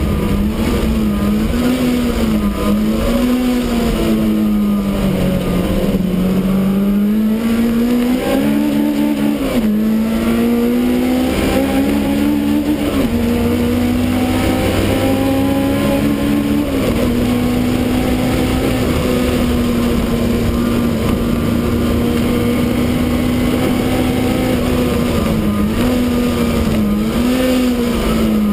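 Supercharged BMW E30 race car's engine running hard, heard from inside the stripped cabin. The revs climb and fall repeatedly with the throttle, with a sudden drop a little past halfway.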